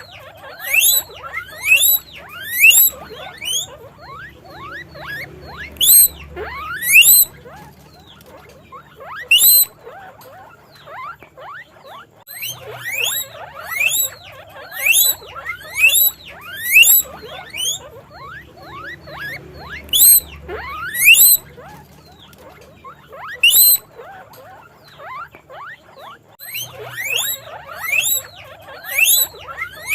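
Guinea pig wheeking: loud, high whistling squeaks that each sweep upward in pitch. They come in quick runs of several calls with short pauses between the runs.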